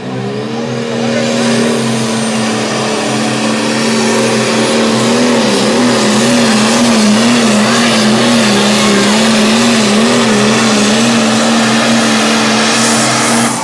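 John Deere Pro Stock pulling tractor's turbo diesel engine at full throttle under load during a pull. Its pitch climbs as it launches, then holds high, wavering up and down for several seconds mid-run, and the sound cuts off near the end.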